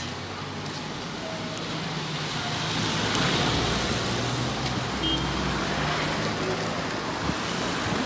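Cars driving slowly past on a street: engine and tyre noise swelling as a small SUV comes by, loudest around the middle.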